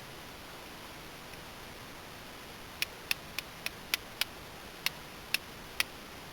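A steel striker made from an old carbon-steel file struck against a piece of Texas flint to throw sparks: nine sharp, short clicks, starting about three seconds in, quick at first and then more spaced.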